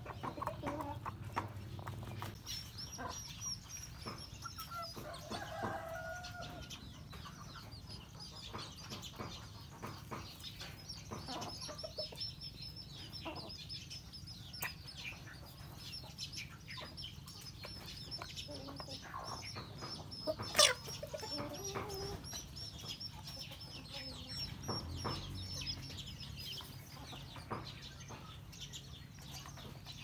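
Roosters and hens feeding on scattered grain, with soft clucking and many quick taps of beaks pecking at the dirt and feed. High, rapid chirping runs through much of it, and one sharp knock comes about twenty seconds in.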